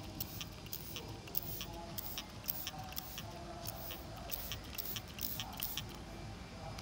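Plastic trigger spray bottle being squeezed over and over, each pull a short hiss of water mist, about three or four a second, stopping near the end.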